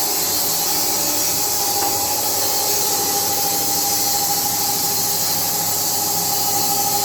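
Carpathian SMFA 1000 horizontal band sawmill running through a log at slow feed: a steady, even hiss of the bandsaw blade in the wood over a constant whine from the machine.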